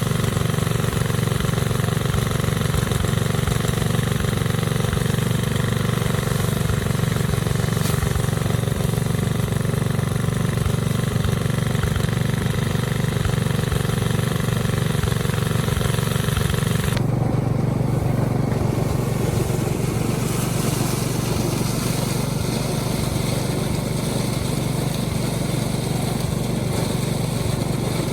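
Small engine running steadily. About 17 s in, the higher sounds change abruptly while the low engine note carries on.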